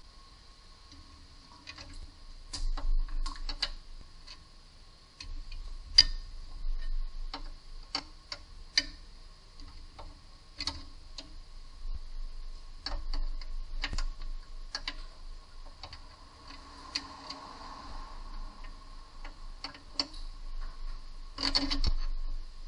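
Ratchet wrench clicking in short, irregular strokes on a bolt of a car's front lower control arm, with a quick cluster of clicks near the end.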